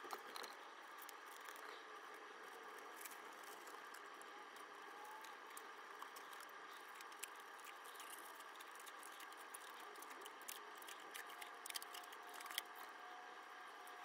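Faint crinkling and small clicks of soft plastic wrap being pulled off its roll and wrapped around a shift knob, busiest in the last few seconds, over a steady low hiss.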